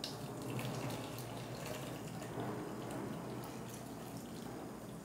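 Blended carrot, apple and lemon juice poured from a blender jar through a strainer into a plastic jug: a steady, faint pouring and trickling of liquid.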